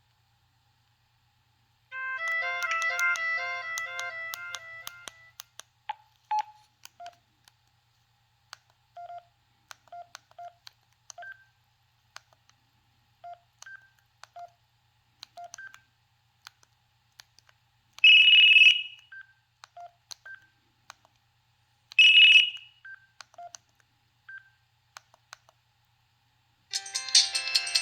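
Kyocera KX9B cell phone playing its preloaded polyphonic ringtones through its small speaker. A short melody plays about two seconds in, then scattered short beeps and button clicks follow, with two brief loud tones. Near the end another, busier ringtone starts.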